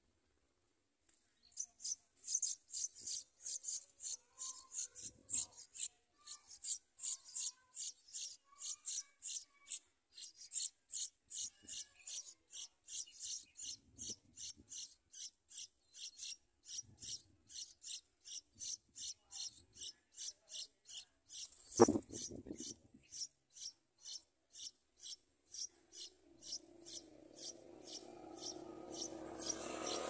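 Yellow-vented bulbul nestlings begging: short high-pitched calls repeated about two or three times a second, starting about a second and a half in and growing fainter toward the end. A single sharp knock comes about three-quarters of the way through, and a hiss rises near the end.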